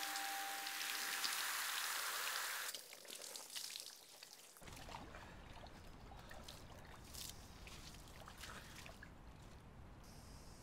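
Water pouring and splashing, a steady rush that drops away about three seconds in, followed by faint drips and trickles of water running off.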